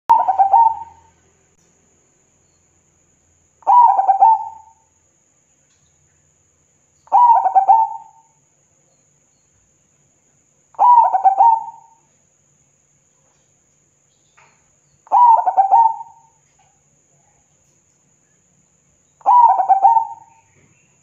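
Zebra dove (perkutut) cooing: six phrases of quick staccato coo notes, each about a second long, repeated about every four seconds.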